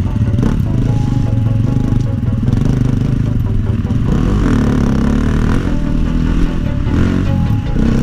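KTM EXC-F 250 four-stroke enduro bike engine revving up and down through the gears while riding a dirt track, with electronic music laid over it.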